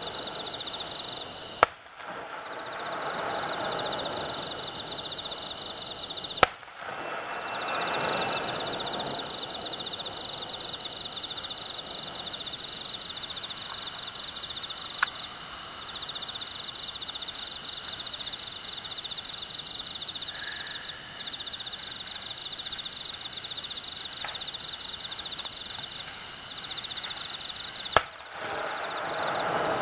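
Aerial firework shells bursting in the distance: three loud sharp bangs, about two seconds in, about six seconds in and near the end, with a fainter one near the middle, the first two trailing off in a couple of seconds of rumbling echo. A steady high trill runs underneath.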